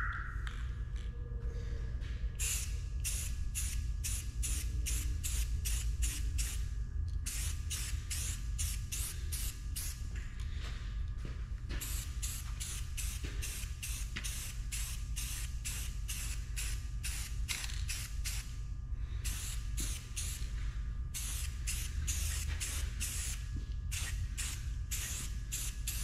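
Rust-Oleum Paint + Primer aerosol spray can hissing in a long series of short sprays with brief gaps between them, starting about two seconds in. A low steady hum runs underneath.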